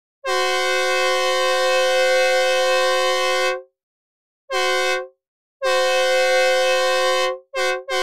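Synthesized Nathan K2 train horn, a two-note chord a tritone apart, played dry without reverb. It sounds one long blast of about three seconds, a short blast, a longer blast, then two quick short toots near the end, each starting and stopping cleanly.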